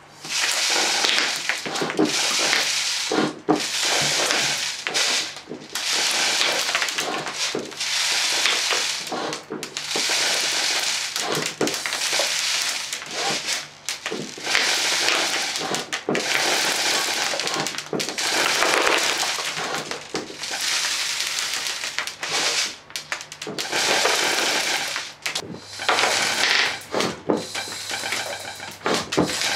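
Homemade compressed-air BB gun firing full-auto in bursts of a second or two, one after another with brief pauses: a rush of air with a rapid crackle of BBs striking the target.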